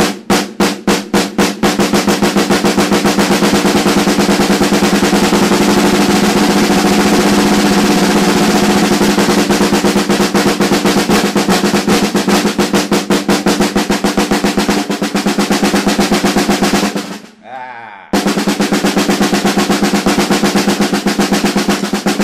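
Snare drum played with drumsticks: separate strokes speed up over the first two seconds into a fast, even roll. The roll breaks off about seventeen seconds in, then starts again about a second later.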